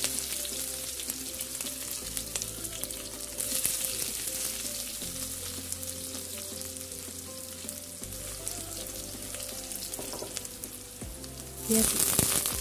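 Sliced onions frying in hot oil with cumin seeds in an aluminium kadhai, a steady sizzle that swells louder about a second before the end.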